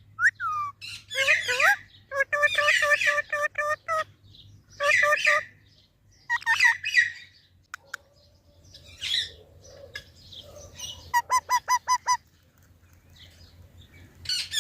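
A parrot calling: runs of quick, evenly repeated calls broken by short pauses, with a few gliding whistled notes near the start.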